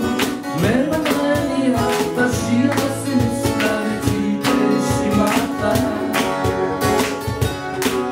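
Two acoustic guitars strummed in a steady rhythm with a man singing, and a cajón keeping the beat.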